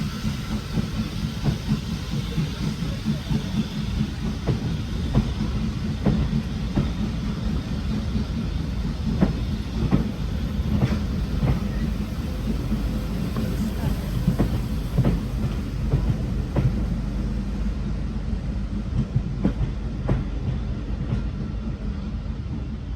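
A train running past on the line: a steady low rumble, with wheels clicking irregularly over rail joints throughout.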